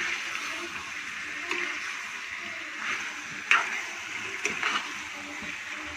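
Chicken in oil and tomato-onion masala sizzling in a kadai as it is stirred with a metal spoon, with a few short scrapes and knocks of the spoon against the pan.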